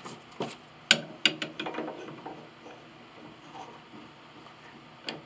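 A run of sharp knocks and clicks in the first two seconds, then one more near the end, as a steel C-clamp is handled and its screw tightened down on glued piano pinblock pieces.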